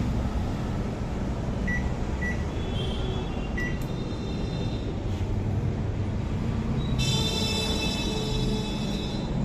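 Faulty microwave oven running with a steady low hum: the noise problem of an oven that is not heating. A few short beeps sound in the first four seconds, and a high-pitched whine joins about seven seconds in.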